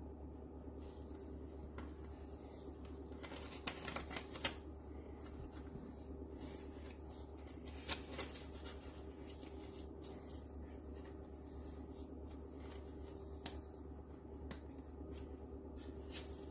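Paper pages of a handmade journal being turned and smoothed by hand: soft paper rustling, with a few sharper crackles of a page flicking over, around four and eight seconds in. A steady low hum runs underneath.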